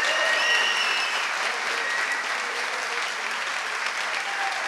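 Audience applauding, with a few calls rising over the clapping in the first second or so.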